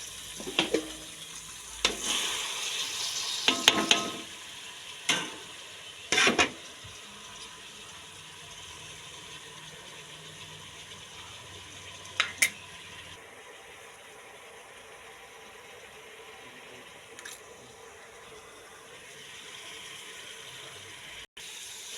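A cooking utensil knocking and scraping against a pan a handful of times, over a faint steady hiss, with a long lull in the middle.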